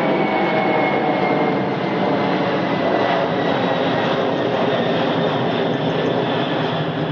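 Four GE CF6-80C2B1F turbofans of a Boeing 747-400 freighter at climb power just after takeoff, passing overhead. The loud, steady jet noise carries a faint high whine that slowly drops in pitch near the start, and the whole sound eases slightly as the aircraft climbs away.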